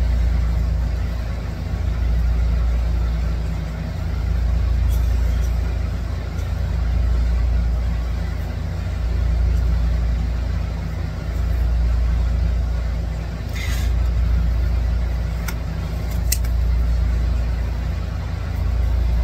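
A steady low machine hum that swells and fades about every two seconds, with a few clicks in the second half.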